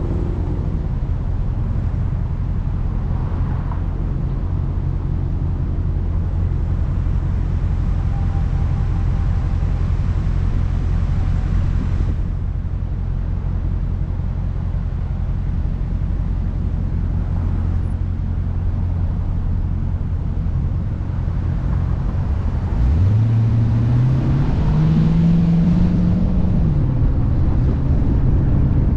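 Car driving along a road with a steady low rumble of engine and road noise. About 23 seconds in, the engine note climbs as the car accelerates, holds for a few seconds, then eases off.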